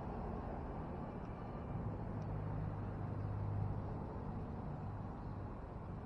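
Low engine hum of a passing vehicle that swells and fades over about three seconds, over a steady low outdoor rumble.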